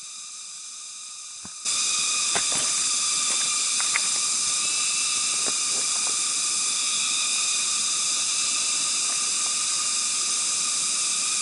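A loud, steady chorus of insects: a dense hiss of several held high pitches that starts suddenly about two seconds in. A few faint clicks or snaps come through it in the next few seconds.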